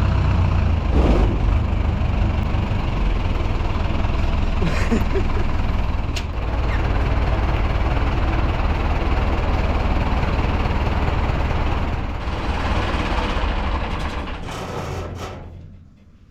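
Zetor tractor's diesel engine running steadily, then fading out near the end.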